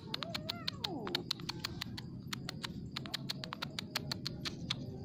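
A cat meows once, a drawn-out call that rises and then falls in pitch, ending about a second in, over a rapid, irregular crisp clicking that runs throughout.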